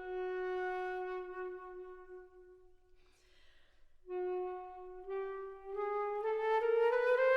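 Background music: a solo woodwind holds one long low note, pauses, then plays a rising run of notes that grows louder near the end.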